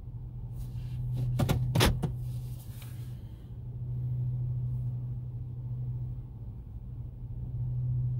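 Steady low hum of a car heard from inside the cabin, with a few sharp clicks or knocks, the loudest just under two seconds in.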